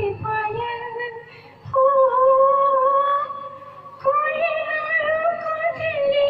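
A woman singing into a handheld microphone: three long held notes of about two seconds each, each wavering slightly in pitch, with a short dip between them.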